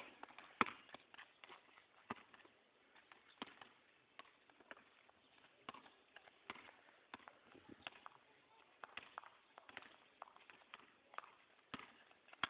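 A basketball bouncing on a concrete court, with running footsteps: short, sharp knocks at uneven spacing, the loudest about half a second in.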